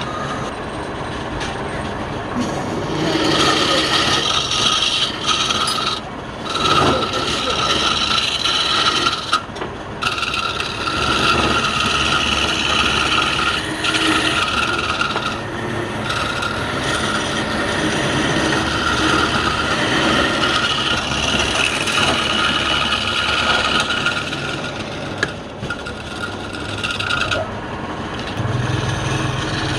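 Wood lathe spinning a workpiece while it is scraped or sanded, a steady rasping hiss over a constant whine, broken by several short pauses.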